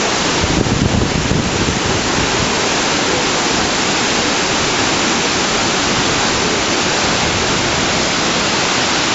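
Iguazú Falls' water crashing down, a loud, steady rush of noise, with a brief louder swell about a second in.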